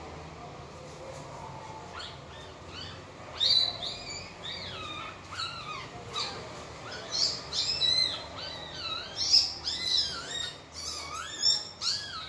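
Young puppies whimpering and squealing: a run of high, wavering cries that each rise and fall in pitch, starting about two seconds in and coming thick and fast after that.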